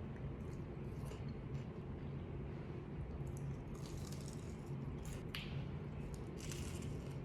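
Someone chewing fried catfish nuggets, with scattered crisp crunches and mouth sounds over a steady low hum, busiest about two thirds of the way in.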